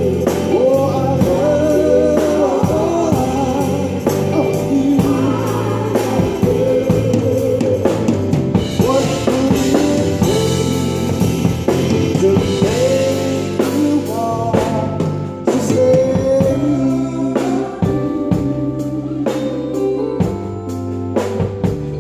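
Live band playing an instrumental passage of a song: a lead melody bending in pitch over steady bass notes and drum-kit hits.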